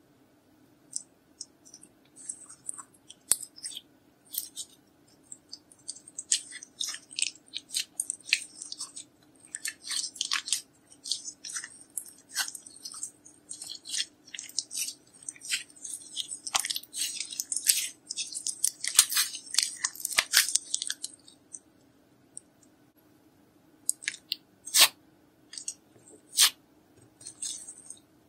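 Glittery slime being kneaded and squeezed by hand: a dense run of wet clicks, crackles and pops. After about twenty seconds it thins out to a pause and then a few single loud pops near the end.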